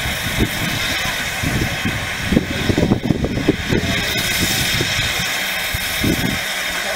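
Narrow-gauge steam locomotive standing and hissing steadily. An irregular low rumble comes and goes underneath, heaviest about two to four seconds in.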